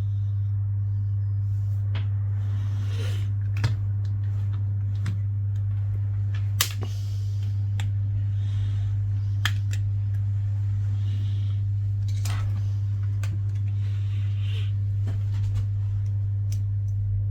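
Steady low electrical hum with a few sharp clicks and light rustling from small tools and parts being handled on the repair bench.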